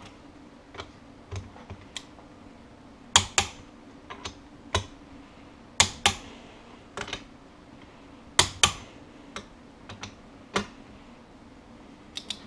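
Click-type torque wrench clicking off at its set torque on the differential bearing cap bolts of an MGB rear axle. The loudest clicks come in three pairs, each bolt clicked twice, with fainter ticks between them over a steady low hum.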